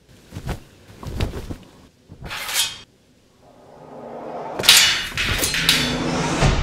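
Martial-arts fight sound effects: a few sharp hits and a quick whoosh of fast strikes, then a rising rush that builds into a flurry of loud blows near the end.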